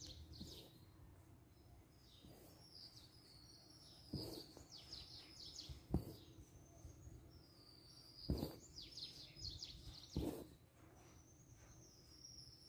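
Faint chirping of small birds in the background, short high chirps repeated throughout. A few soft clicks come roughly every two seconds, about four in all.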